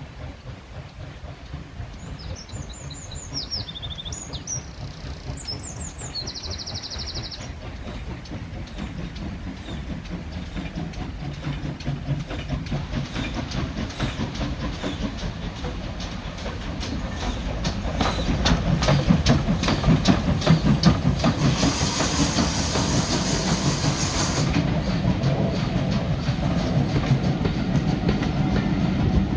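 Pannier tank steam locomotive and its coaches approaching and running past, growing steadily louder: a low rumble with a regular clicking of wheels over rail joints, and a hiss lasting a couple of seconds near the loudest point.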